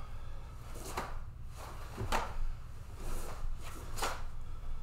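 Karate practitioner's cotton gi snapping and bare feet stepping on a wooden floor as he works through blocks and strikes: about four sharp swishes, roughly one a second.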